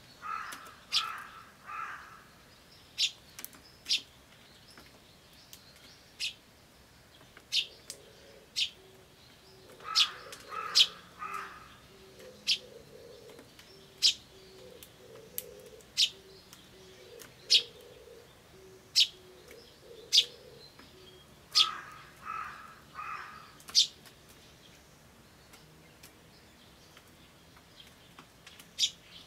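A tree sparrow chick cheeps feebly, with short high chirps every second or two. A crow caws in short runs three times: at the start, about ten seconds in and about twenty-two seconds in. In the middle an oriental turtle dove repeats its low cooing phrase.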